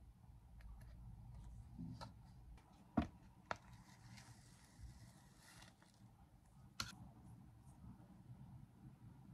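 Quiet room tone with a few short knocks and clicks. The loudest is about three seconds in, with others just before and after it and one near seven seconds.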